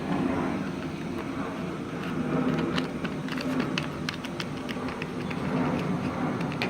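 A steady mechanical hum, with scattered light clicks and taps over it.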